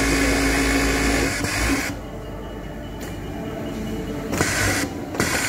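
Industrial overlock sewing machine running at speed as fabric is fed through it. It stops about two seconds in, then runs again in a few short spurts.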